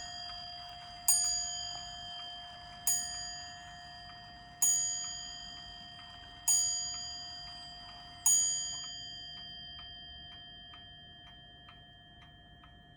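Vintage Dutch FHS Atlas wall pendulum clock striking its top-mounted bell, five strokes about two seconds apart, each ringing on and fading. After the last stroke the bell dies away and the pendulum movement's ticking, about two ticks a second, comes through near the end.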